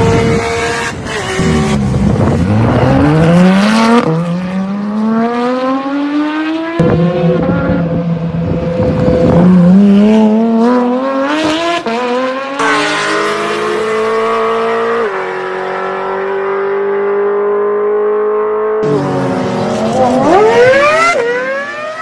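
Sports car engines accelerating hard in a quick run of separate clips: each one revs up in pitch through a gear, drops at the shift and climbs again.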